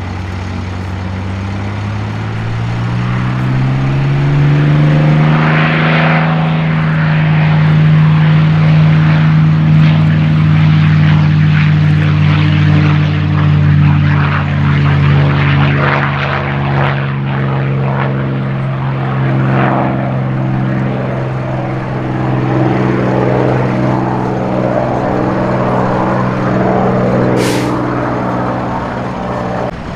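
P-51 Mustang's Merlin V12 engine at takeoff power, its pitch rising over the first few seconds as the fighter accelerates down the runway, then holding steady as it lifts off and climbs away.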